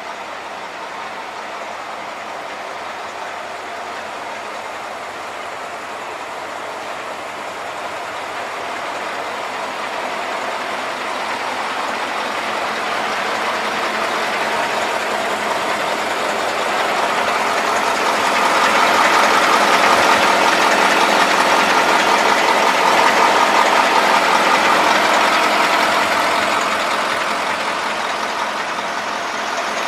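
KamAZ-43118 truck's diesel engine idling steadily, growing louder through the middle and easing off near the end.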